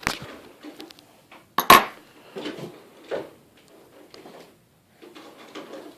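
Sharp clicks and clinks of small die-cast metal and plastic toy-car parts and a small tool being handled, with one loud snap a little under two seconds in and several lighter knocks after it.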